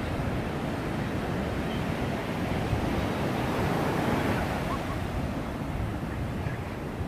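Ocean surf breaking and washing up onto a sandy beach in a steady wash of sound, with a low rumble of wind on the microphone.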